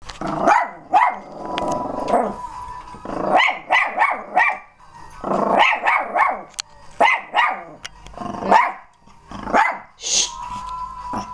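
Boston terrier barking in quick repeated bursts, a few of the barks drawn out longer, at a person it sees outside.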